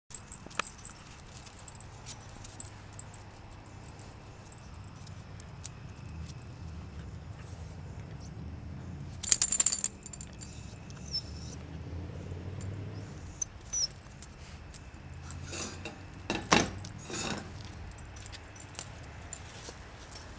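Metal tags jingling on a small dog's collar as the dogs move about and play, with scattered light clicks and two louder rattling spells, about nine seconds in and again about sixteen seconds in.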